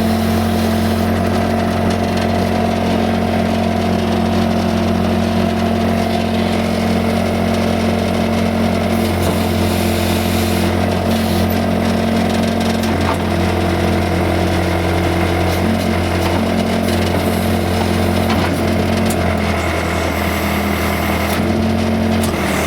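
Case 580C backhoe's four-cylinder diesel engine running steadily at raised throttle, about 1500 rpm, while the backhoe digs. Its note changes a little in the second half, with a faint knock or two.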